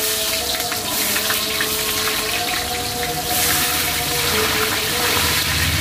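Sliced onions dropped into very hot oil in a large aluminium pot, sizzling and frying with a steady hiss.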